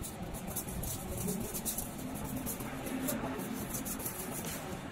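Light, irregular clicking and rattling of aluminium radiator tubes as they are handled and pressed into the guides of a radiator core assembly machine, over a steady low workshop hum.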